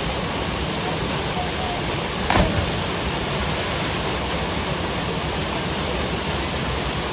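Waterfall, its water rushing in a steady, even roar. About two and a half seconds in, a brief louder sound cuts through.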